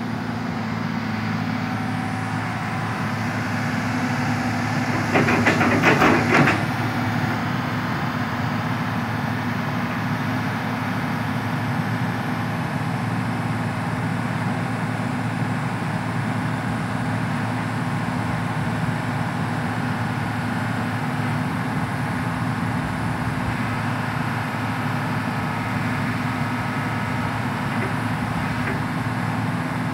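Hitachi EX220 excavator's diesel engine running steadily, with a louder, rougher stretch around five to six seconds in.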